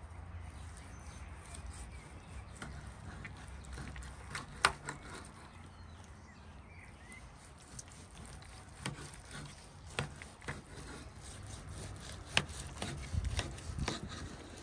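Light handling sounds: scattered sharp knocks and clicks with some rubbing or scraping, the sharpest about four and a half and twelve and a half seconds in, with a cluster of knocks near the end.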